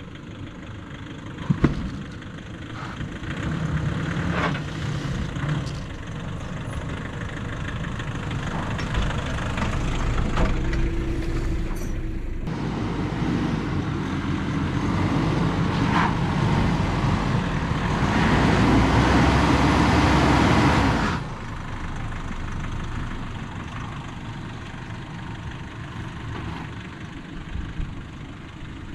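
A 4WD's engine running at low revs as it crawls over a deeply rutted dirt track, the pitch shifting as it works over the ruts. A sharp knock about a second and a half in; the sound grows louder through the middle and cuts off suddenly about 21 seconds in, leaving a quieter engine drone.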